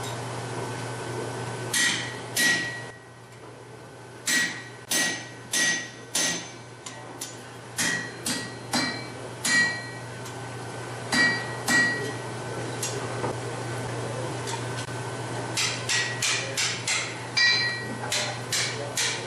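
Hand hammer striking red-hot steel bar on an anvil, each blow with a bright metallic ring. The blows come in irregular runs of a few strikes with short pauses between, as the split legs are forged and bent. A steady low hum runs underneath.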